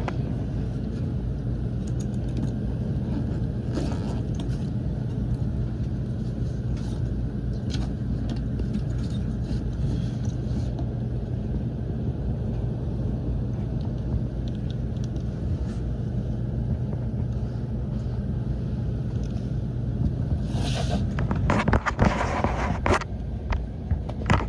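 Furnace running with a steady low mechanical hum. Near the end, scraping and clattering from handling parts or tools.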